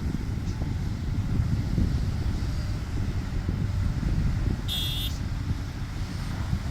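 Diesel engines of heavy earthmoving machinery running with a steady low rumble. A brief high-pitched squeal sounds about five seconds in.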